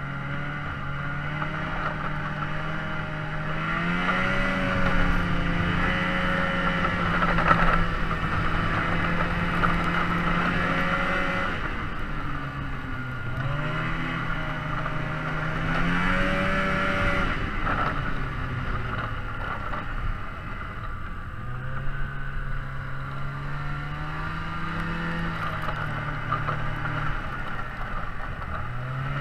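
An engine running steadily. Its pitch climbs slowly over several seconds and then drops back, a few times over, as an engine does when it speeds up and changes gear.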